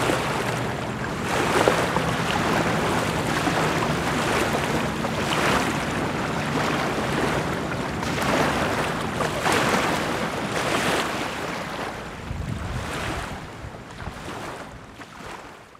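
Wind and water noise by a lake, swelling and easing in waves over a faint steady low hum. It fades out near the end.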